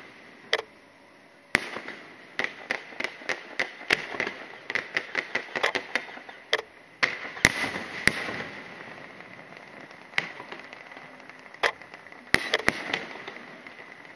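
Fireworks shells bursting: a rapid, irregular string of sharp bangs, densest in the first half, with a lingering crackling hiss after a big burst about seven seconds in, then thinning to scattered bangs near the end.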